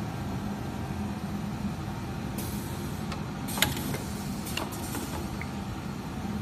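Steady hum of an automatic pocket-folding and stitching machine, with its pneumatic folding mechanism hissing air from about two and a half seconds in and clicking sharply once, a little after three and a half seconds, then more lightly about a second later.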